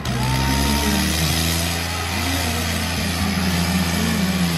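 Tractor diesel engines, a John Deere 5050D and a New Holland 3630, running hard under full load as they pull against each other. They make a steady, heavy drone.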